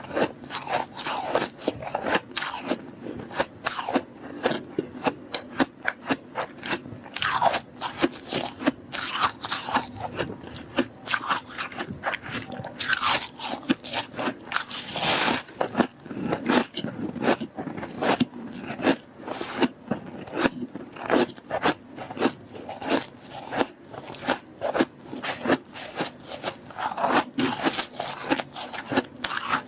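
Close-miked biting and chewing of freezer frost: dense, irregular crispy crunches several times a second, a little louder around the middle.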